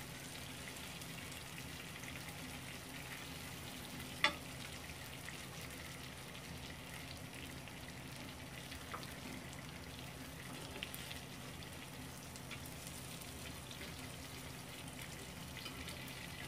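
Salmon steak sizzling and crackling in hot oil in a pan, a steady fine crackle. A single sharp click about four seconds in.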